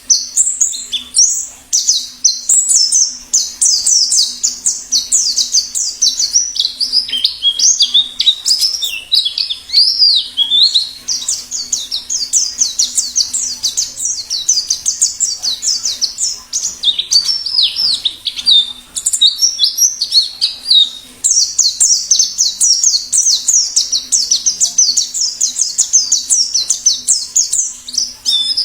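White-eye (pleci) singing a fast, unbroken stream of high twittering chirps, used as a training and lure call for white-eyes.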